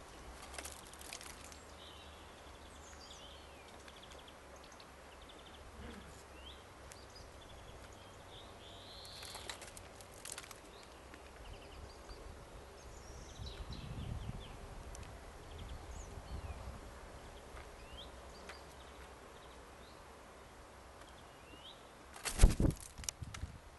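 Quiet garden ambience with scattered short calls of small birds and a few faint taps. Near the end, a short burst of loud thumps.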